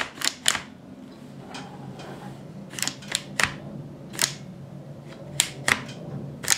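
Sharp clicks and small knocks from an airsoft MP9's receiver and bolt parts being handled and pressed into place during reassembly, coming singly and in quick pairs.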